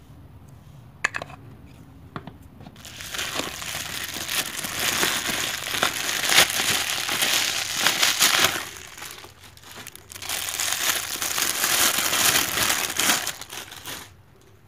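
Clear plastic wrapping crinkling and rustling as it is pulled off the camera body, in two long stretches with a short lull between. A light knock sounds about a second in.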